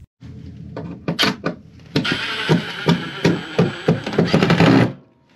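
Power driver running a screw into a wooden hole cover for about three seconds, then stopping suddenly, after a few knocks of wood.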